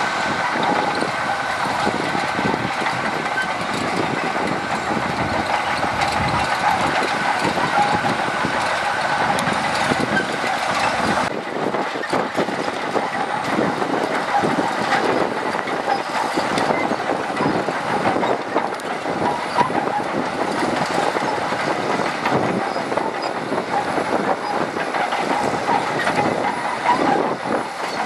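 Shantui DH17C2 crawler bulldozer working, its engine running steadily with a continuous high whine and the rattling clanks of its steel tracks. The sound changes abruptly about eleven seconds in.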